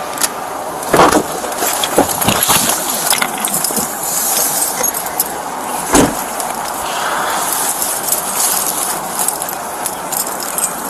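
Rustling and jangling of a police officer's gear as he moves, with a few sharp thumps or knocks: one about a second in, a pair a little after two seconds, and a louder one about six seconds in.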